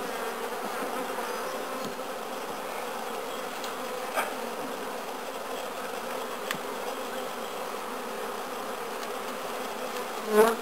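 Honeybees buzzing steadily around an opened hive during an inspection, with a couple of light knocks from the frames being handled.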